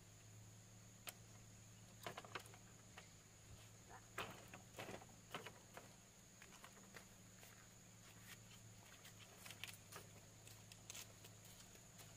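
Near silence: a faint steady hum with scattered light clicks and taps, most of them in the first half.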